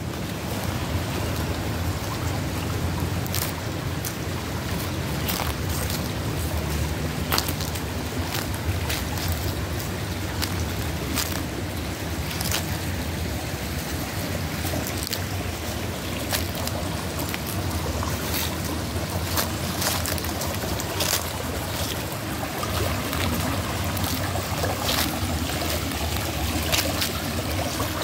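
Small stream running and trickling over rocks, a steady rush with a low rumble under it and scattered sharp clicks.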